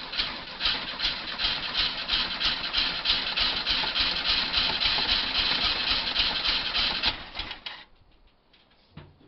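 Volkswagen bus's air-cooled 1700cc flat-four being cranked over on its starter, a rhythmic churning of about three pulses a second, with no fuel lines connected and only fuel dripped into the carburettors. The cranking stops about eight seconds in.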